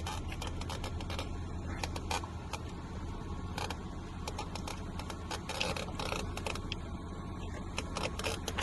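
Scattered light clicks and rattles of hand work on plastic parts under a car dashboard, over a steady low hum.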